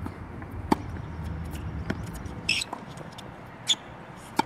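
Tennis rally on a hard court: a tennis ball struck by a racket and bouncing, heard as several sharp pops a second or so apart, over a low background rumble.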